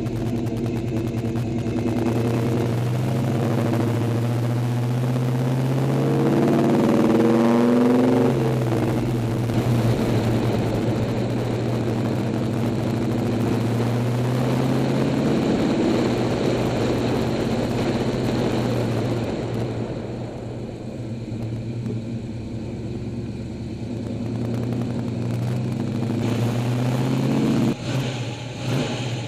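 1970 Chevelle SS 396's big-block V8 running while the car is driven. Several seconds in the revs climb and then drop back. After that it settles into a steady pull, eases off and goes quieter about two-thirds of the way through, and changes abruptly near the end.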